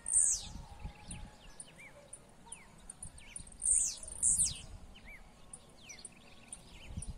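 Blue-black grassquit (tiziu) singing its short, high song that falls steeply in pitch, three times, with fainter chirps from other birds between the songs.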